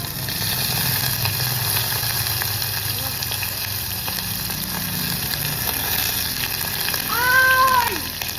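Food sizzling and frying in a hot pot, a steady crackling hiss. Near the end a short high-pitched call rises and falls.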